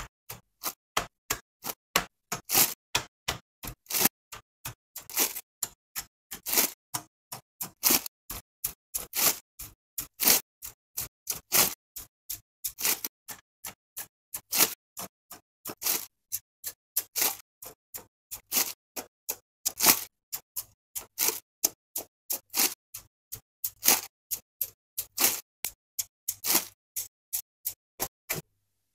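Plastic model-kit runners being handled and laid into a cardboard box: a fast, even run of short crinkles and clicks, about two to three a second, that stops just before the end.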